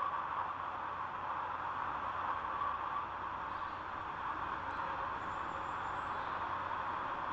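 Wind blowing as a steady, even rush, with no clear birdsong standing out.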